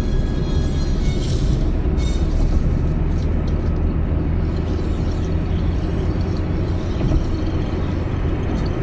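Steady road noise inside a car cruising at highway speed: a low, even rumble of tyres and engine.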